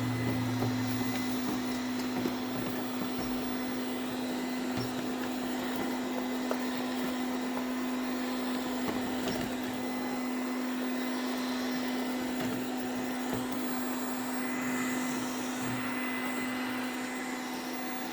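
Ziglint robot vacuum cleaner running, a steady motor hum with a strong low tone, with a few faint knocks.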